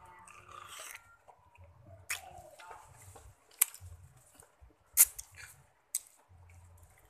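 Wet chewing and biting into a sour lemon, squishy and juicy, with several sharp clicks scattered through.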